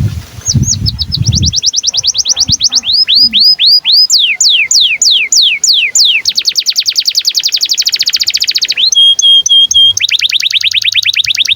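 Domestic canary in song: a long unbroken phrase of quick falling whistled notes that speeds up into a very fast trill, breaks into a few short steady whistles about nine seconds in, then goes straight into another fast trill.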